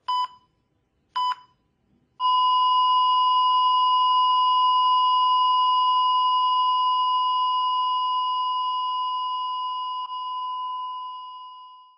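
Heart monitor sound effect: two short beeps about a second apart, then one unbroken flatline tone at the same pitch that holds for about ten seconds and fades out at the end, the signal of cardiac arrest.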